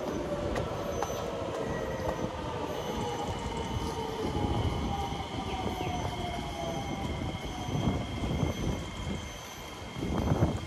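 Kawasaki–Sifang C151A MRT train arriving and slowing, its motors whining in several tones that fall in pitch as it brakes, over a steady rumble of the train on the track. Near the end, a few louder bursts of low rumbling noise.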